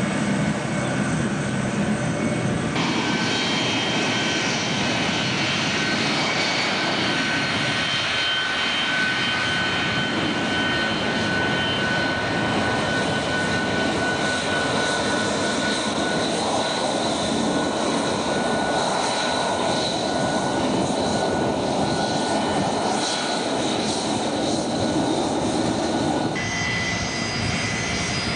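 Jet airliner engines running at low power as the aircraft taxi: a steady rushing noise with several high whining tones. The sound changes abruptly about three seconds in and again near the end.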